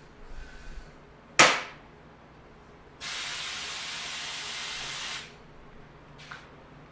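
Pressurized gas hissing from a nozzle: one short, sharp blast about a second in, then a steady hiss lasting about two seconds that cuts off.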